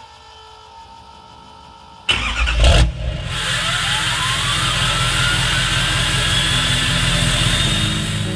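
An engine starts suddenly and loudly about two seconds in, after a faint steady hum, then keeps running with a whine that rises steadily in pitch for several seconds.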